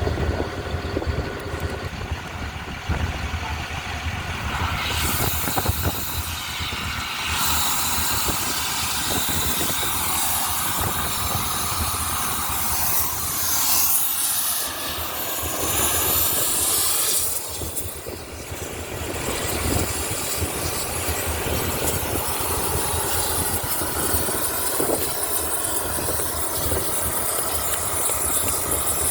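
An engine running steadily, with loud hissing that comes and goes, from about 5 to 7 seconds and again from about 12 to 17 seconds.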